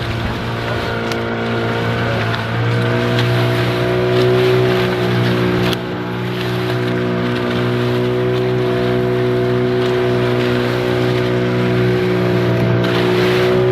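Boat engine running steadily under way, its pitch rising slightly a few seconds in and then holding level.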